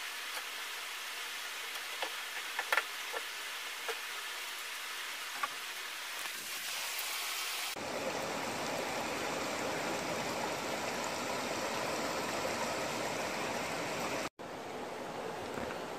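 Steady hiss of running water, with a few light knocks and clicks in the first half. About halfway through it changes abruptly to a fuller, deeper wash of water.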